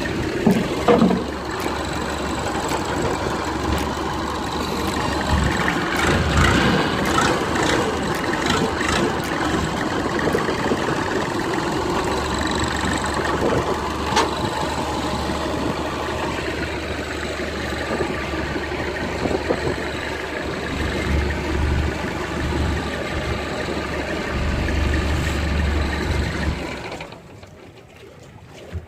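A fishing boat's engine running steadily. The sound drops away sharply near the end.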